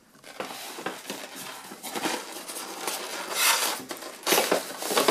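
Hands working open the end flap of a cardboard model box, with the polystyrene insert inside. Cardboard and foam rub and scrape in irregular rustling strokes, louder near the end.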